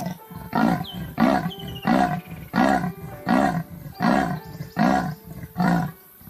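Leopard's sawing call: eight roars in a row at an even pace, about three every two seconds.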